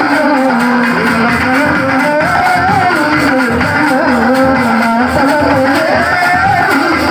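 Loud folk music for a chekka bhajana dance: a steady drum beat under a continuous melody line that slides and wavers in pitch.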